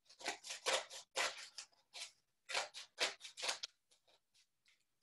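Scissors cutting through three stacked sheets of thick paper: a quick run of crisp snips for about three and a half seconds, then fainter, smaller snips near the end.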